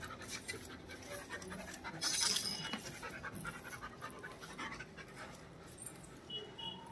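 A dog panting close by, with soft swishes of a grass broom sweeping stone floor tiles; one louder broom swish about two seconds in.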